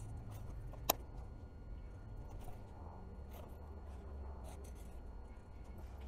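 Faint taps and scrapes of a steel ruler and marker being worked against painter's tape on a plastic console, with one sharp click about a second in, over a low steady rumble.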